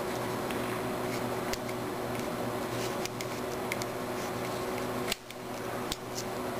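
Steady mechanical hum in the room, with scattered light clicks of a nylon plastic rifle bipod being handled and seated on its rail, the sharpest click about five seconds in.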